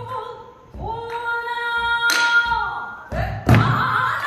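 A female pansori singer holds long, sustained sung notes, accompanied by a buk barrel drum struck about four times on its head and wooden rim.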